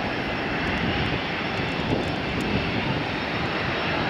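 Airbus A319 airliner's twin jet engines at takeoff thrust as it lifts off and climbs away, a steady, even engine noise.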